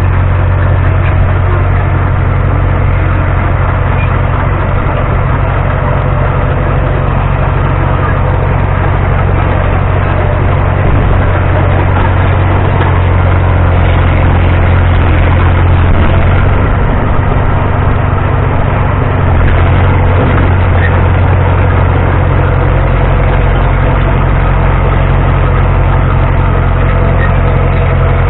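Heavy engine running steadily at one pitch, with a slight change in its lowest note about two-thirds of the way through.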